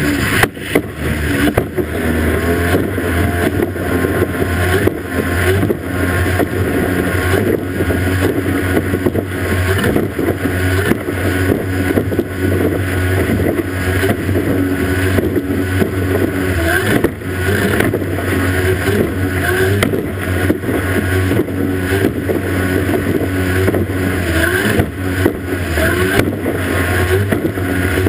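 Racing outboard motor running flat out on a small race boat, with water and spray rushing past the hull. Frequent short knocks break through as the hull slaps over the waves.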